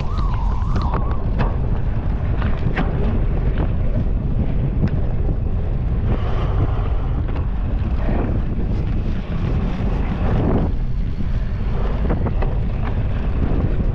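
Wind rushing over a GoPro's microphone while riding a cyclocross bike, a loud steady rumble with many short knocks and rattles scattered through it.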